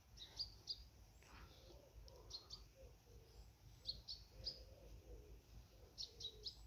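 Faint bird chirping: short high chirps in quick groups of two or three, repeating every couple of seconds over a quiet low rumble.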